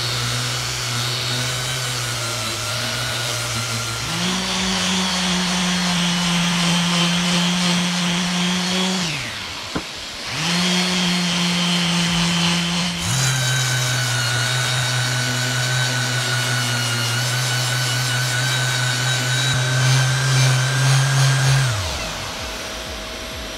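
Electric power tool motor running with a steady hum. Its pitch steps up about four seconds in, cuts out briefly around ten seconds, and restarts lower about three seconds later. It winds down shortly before the end.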